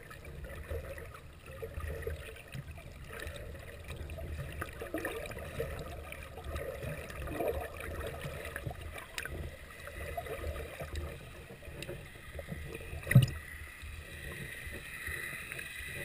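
Muffled underwater noise of water swirling and sloshing around a camera just below the surface, with one sharp knock about 13 seconds in.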